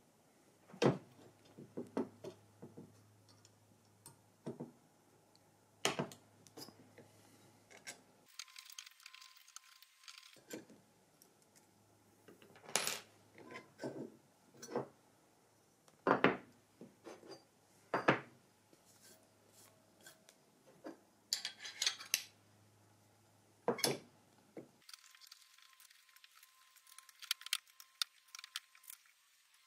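Scattered sharp clicks and knocks of small metal parts being handled: the drill guide of a JessEm dowelling jig being unscrewed with an Allen key and swapped, with its screws and guide blocks set down on the bench.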